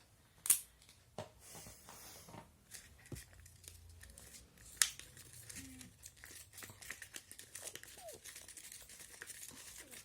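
Crinkling, crackling handling noise with two sharp clicks, about half a second in and near the middle, as magnetic powder is worked into homemade glue slime.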